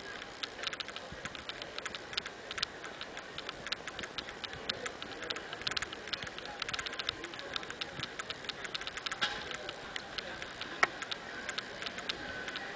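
Small wheels of a pulled shopping trolley clicking and rattling over paving stones, a dense, irregular run of ticks with one louder knock near the end.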